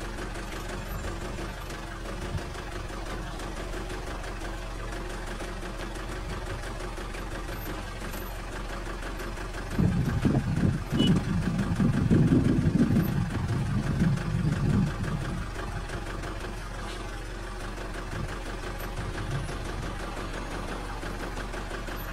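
Car engine idling steadily, heard from inside the stopped vehicle. About ten seconds in, a louder, uneven low rumble lasts for about five seconds.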